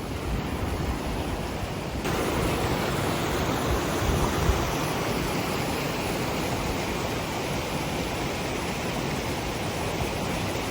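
Steady rushing noise, a little louder from about two seconds in.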